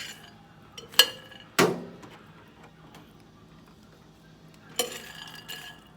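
Knocks and clinks of a microwave roasting dish being handled: a short clack at the start, then two sharp knocks about a second in. Near the end comes a dry scraping rattle as the roasted peanuts start to be stirred.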